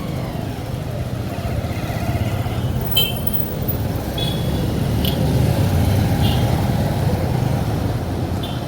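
Street traffic: motor vehicles running past with a steady low rumble. A sharp click comes about three seconds in, and several brief high sounds are scattered through.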